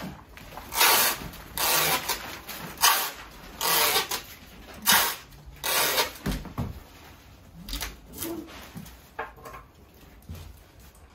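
Packing materials being handled: a run of short, loud rasping rips and rustles, about one a second for the first six seconds, then fainter, scattered rustles.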